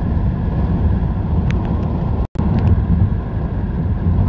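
Tyre and road noise of a car at highway speed, heard from inside the cabin: a steady low rumble. It cuts out suddenly for a split second a little past halfway, then resumes.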